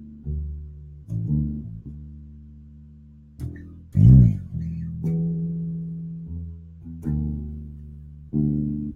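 Electric bass guitar played solo: single low plucked notes, each left to ring and die away. About four seconds in comes the loudest note, bent or slid in pitch.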